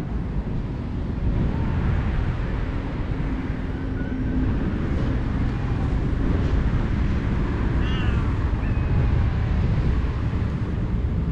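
Stray cats meowing now and then, the clearest call about eight seconds in, over a steady low rumble.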